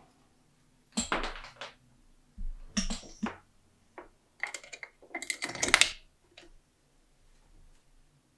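Quarter-inch jack plugs being pushed into the input and output sockets of a Boss RC-3 Loop Station pedal, with metal clicks and cables scraping on a wooden table. The sound comes in several short bursts, the loudest about five to six seconds in.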